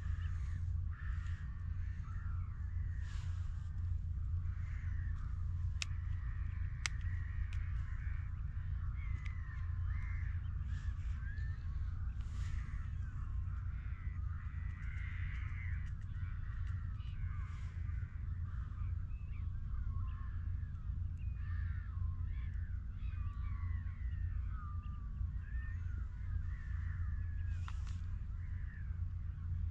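Many short bird calls overlapping continuously, like a flock calling, over a steady low rumble.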